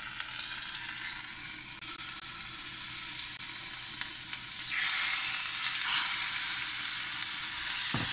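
Raw seasoned chicken breast strips sizzling in hot vegetable oil in a frying pan as they are pushed in off a plate with a wooden spoon. The sizzle grows louder about five seconds in as more of the chicken reaches the oil.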